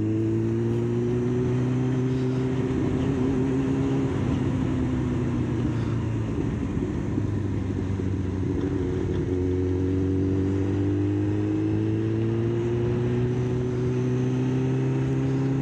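Kawasaki ZX-9R's inline-four engine running under way with wind rushing over the microphone. The engine note eases down for a few seconds around the middle, then climbs steadily again through the second half.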